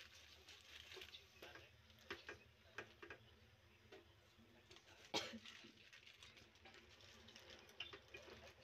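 Faint rustling and crinkling of fresh spinach leaves being piled into an aluminium pot and pressed down by hand, with scattered light clicks and one sharper knock about five seconds in.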